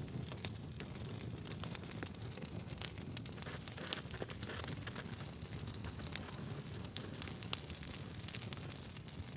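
Wood campfire burning, with a steady low rumble of flame and irregular sharp crackles and pops from the burning logs.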